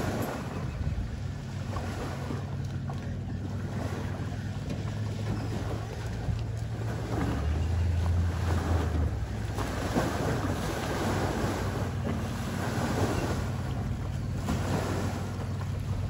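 Low, steady drone of a boat motor on the lake. The deepest note swells for a second or so about halfway through. Wind buffets the microphone and water laps throughout.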